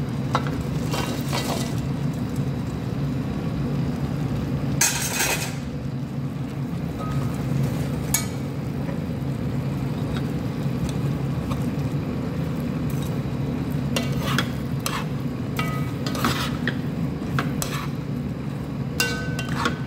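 A metal spoon stirs fried chicken pieces through simmering sweet and sour sauce in a pot, scraping and clinking against the pot. A short rush of noise about five seconds in is the chicken tipped in from a metal colander. A steady low hum runs underneath.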